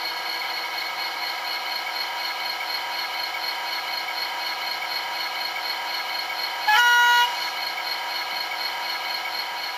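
Sound-decoder recording of a Northern Ireland Railways class 111 diesel locomotive, played through the OO gauge model's onboard speaker: the engine runs steadily at idle, and about seven seconds in a single short, loud horn blast sounds.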